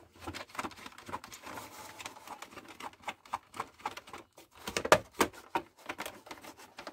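Rapid, irregular clicks and taps of fingers handling the plastic shell and auto-darkening filter cartridge of a welding helmet, with a few louder knocks about five seconds in.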